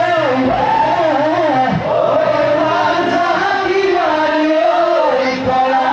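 A group of voices singing a Bihu song, loud and continuous, with a wavering melody.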